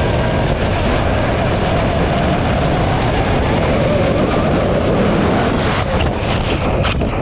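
Arrma Limitless V2 RC car with a Castle 2028 brushless motor and saw-blade wheels running at speed across ice: a loud, steady rushing roar with a high, wavering motor whine. About six seconds in, the sound breaks up into choppy knocks and bumps.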